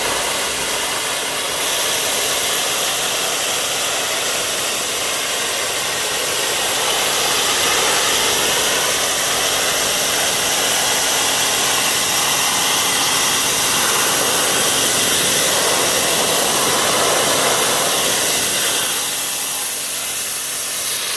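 Kärcher K5 electric pressure washer running, its lance jet hissing steadily as it blasts grime off a weathered wooden table and the gravel beneath, with a steady motor hum under the spray.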